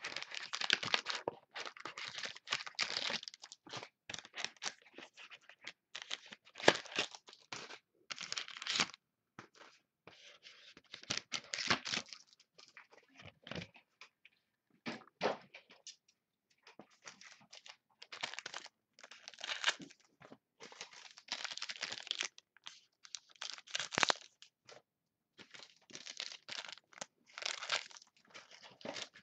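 Wrapping and card packs being torn open and handled, crinkling and tearing in irregular bursts of rustling with short pauses between them.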